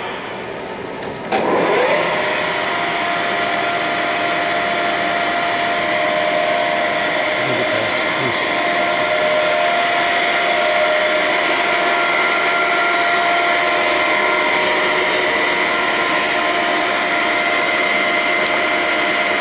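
Summit 20" x 80" gap bed engine lathe switched on about a second in, its spindle rising in pitch as it spins up, then running steadily with a steady whine.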